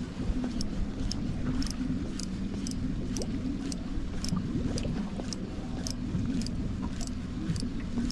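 Spinning reel being wound in to retrieve a lure, a light tick about twice a second, over a steady low rumble of wind and choppy water.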